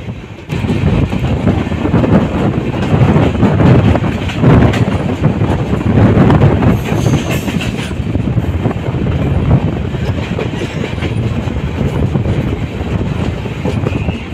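Passenger train coach running on the rails: a loud, steady rumble of wheels and track that starts abruptly about half a second in.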